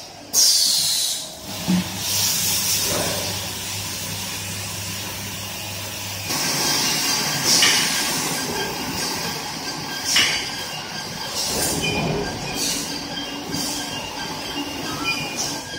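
Machinery of a 5-gallon bottled-water filling line running, with a steady hum that stops about six seconds in. Short, sharp hisses of compressed air break in over it again and again, the loudest at the very start.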